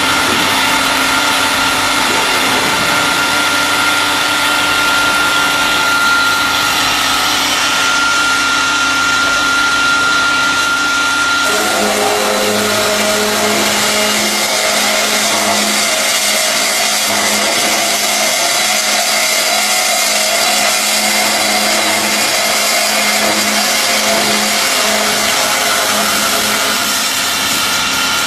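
CNC cutting machine running: a loud, steady mechanical whine made of several held tones, which shift about eleven seconds in, a high tone dropping out and lower ones taking over.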